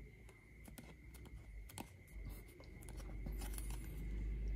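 Faint handling of paper card pieces and double-sided tape: scattered small taps and clicks, with a short rustle about three and a half seconds in, over a steady low hum.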